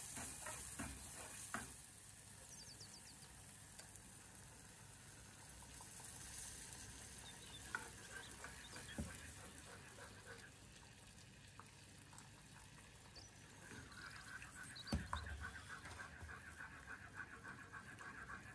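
Food sizzling quietly in hot oil in a pan while a utensil stirs it, with scattered light knocks and scrapes against the pan.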